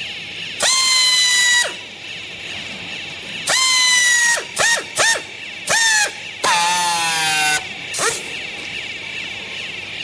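Handheld power strapping tool whining in about seven motor bursts as it tensions and seals green plastic strap around a compressed clothing bale. The first two runs last about a second each, then come short blips and a longer run near the end with a lower, wavering pitch.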